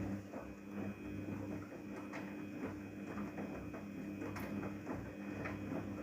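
Daewoo DWD-FT1013 washing machine running on a cotton 40°C wash: a steady motor hum with an irregular patter of small clicks over it.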